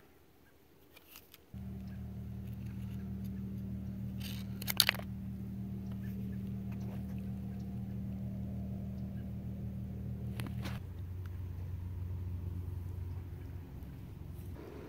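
A steady low engine hum starts about a second and a half in and drops lower about eleven seconds in. A few sharp clicks of a shucking knife on oyster shell come around five seconds in.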